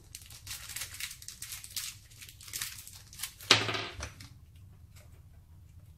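Small clear plastic hardware bag crinkling and rustling as it is handled and opened to take out a screw, with one louder knock about three and a half seconds in.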